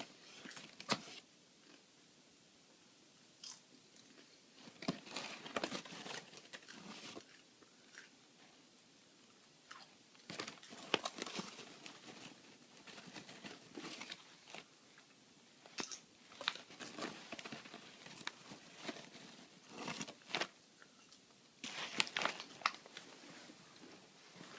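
Popcorn being crunched and chewed in short bursts a few seconds apart.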